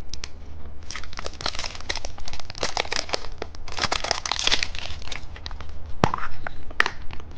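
Plastic candy packaging being crinkled and torn open by hand, an irregular run of crackly rustles and sharp clicks, busiest in the middle.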